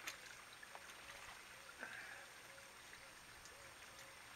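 Faint steady trickle of water in a small pond, with a few light splashes and clicks as broken-up algae drops into it.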